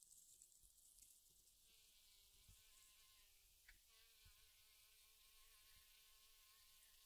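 Faint, thin whine of a flying mosquito, starting about two seconds in and holding a steady, slightly wavering pitch, over a faint high hiss.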